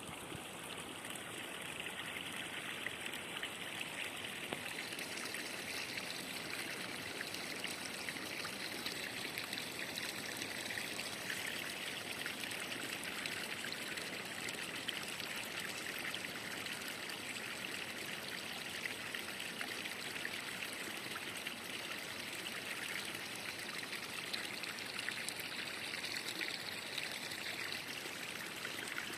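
Water of a small mountain spring and creek running and trickling steadily, a little brighter after about five seconds.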